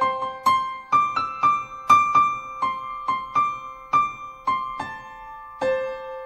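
Background music: a slow melody of single struck keyboard notes, about two a second, each fading before the next. It cuts off suddenly at the end.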